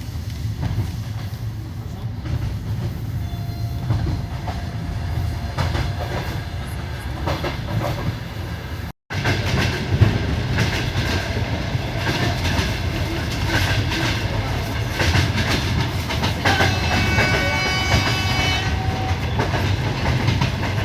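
Passenger train carriage running at speed, heard from inside: a steady low rumble with the clickety-clack of the wheels over the rail joints. The sound drops out for an instant about nine seconds in, then comes back a little louder.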